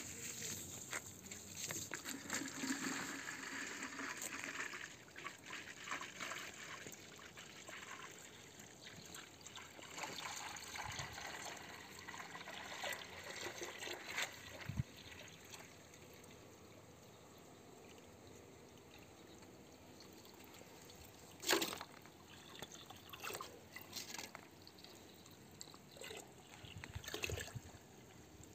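Water trickling from a garden hose, heaviest in the first few seconds, with scattered clicks of handling and one sharp knock about two-thirds of the way through.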